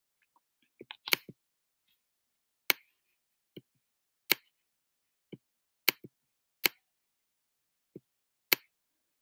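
About a dozen short, sharp clicks at irregular intervals from pen input while digits are handwritten on a digital whiteboard.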